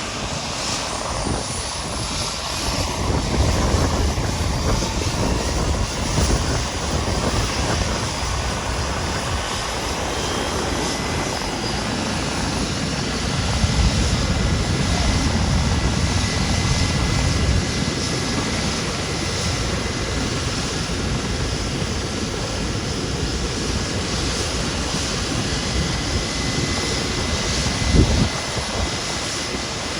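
Westpac Lifesaver rescue helicopter running during takeoff: a steady turbine and rotor noise with a heavy, uneven low rumble that swells and eases. A single thump near the end.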